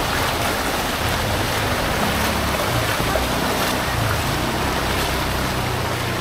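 Shallow floodwater flowing over a paved street, a steady rushing wash, with the low hum of motorcycle engines idling and riding through it.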